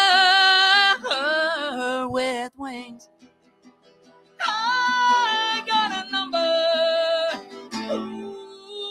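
A man singing long held notes with an acoustic guitar. The first note fades out about two and a half seconds in, with near quiet for a second or so; a second long held note follows, and the guitar is struck again near the end.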